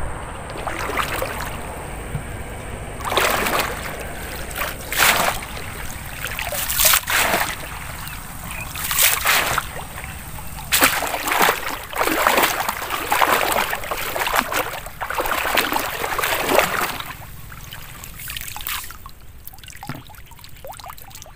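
Long-handled wire-mesh scoop net swept through shallow muddy pond water: repeated splashes, with water trickling and draining out through the mesh, dying down near the end.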